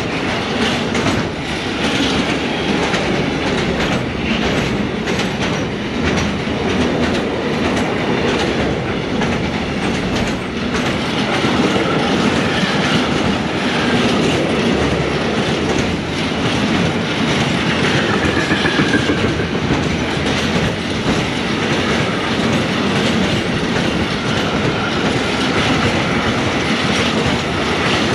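Container freight train's wagons rolling past at speed: a steady loud rumble with wheels clattering over the rail joints, and faint wheel squeals at times.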